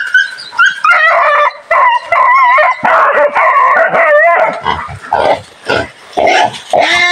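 Hunting dogs barking and yelping as they attack a wild boar. The calls come again and again, high and wavering, and thicken into a dense tangle of noise about three seconds in.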